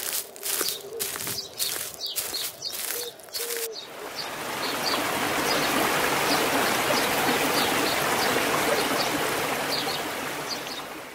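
Footsteps on a forest floor of dry pine needles, about two steps a second. About four seconds in, a rocky mountain stream rushing over stones takes over, fading near the end, with small birds chirping faintly throughout.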